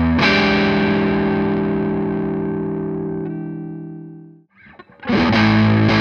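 Distorted electric guitar through a Laney Cub head, a 15-watt EL84 valve amp on its overdrive channel. One chord is struck and left to ring, fading for about four seconds, then muted. After a brief pause a chugging riff starts.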